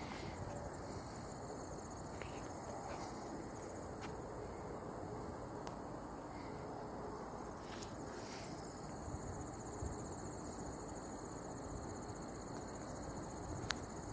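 Insects trilling steadily, a continuous high-pitched buzz over faint outdoor background noise.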